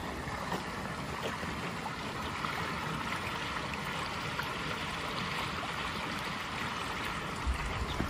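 Water flowing steadily along a narrow concrete irrigation channel, with a few low thuds near the end.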